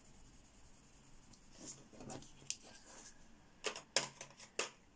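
A string of light clicks and knocks of colored pencils being set down and picked up. It starts about a second and a half in and goes on irregularly for some three seconds.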